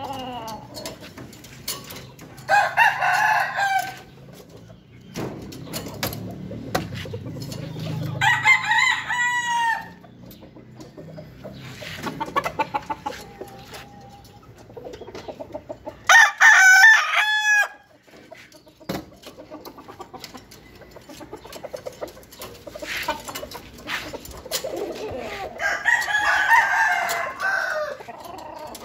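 Roosters crowing four times, the third crow the loudest, with light clicks and knocks of aluminium cage doors being handled between the crows.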